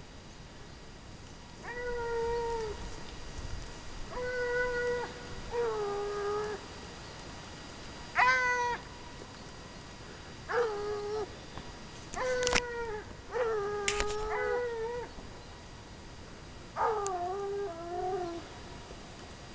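Ariégeois scent hounds baying at intervals, about ten long drawn-out bays, each holding one pitch and dropping at the end. This is hounds giving tongue as they work a hare's scent.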